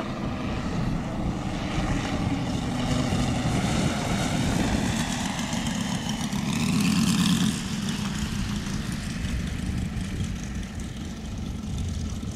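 Propeller engine of a large radio-controlled Stearman PT-17 scale biplane model in flight, running steadily. It swells to its loudest as the model makes a low pass about seven seconds in, then drops back quieter.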